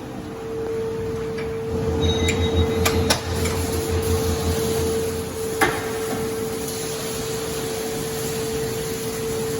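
Large diesel generator set running steadily with a constant whine over its engine noise. There are a few sharp metallic knocks around three seconds in and again a little past halfway.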